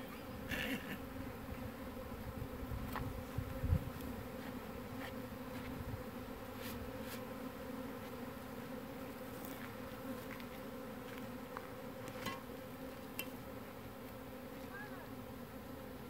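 A swarm of Russian honey bees buzzing in a steady, even drone as they fly around the hive box they are being shaken into. A dull thump stands out a little under four seconds in.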